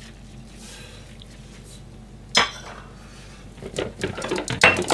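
Plates and dishes being handled on a stainless steel kitchen counter: one sharp clatter a little over two seconds in, then a quick run of clinks and knocks near the end.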